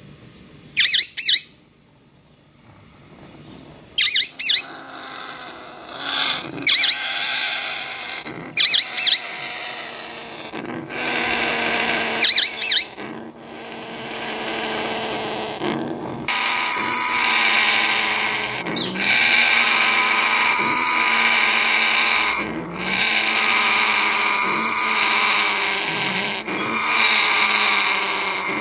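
African grey parrots calling from inside a nest box. Several short, sharp calls in pairs come in the first dozen seconds, then a loud, continuous rasping call that breaks off briefly every couple of seconds.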